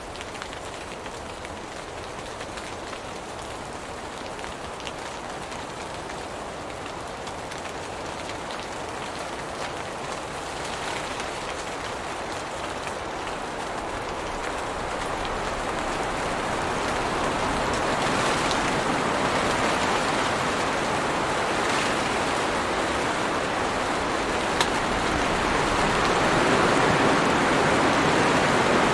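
Steady rain falling on tree leaves, an even hiss that grows gradually louder over the first half and then holds. One short sharp click comes late on.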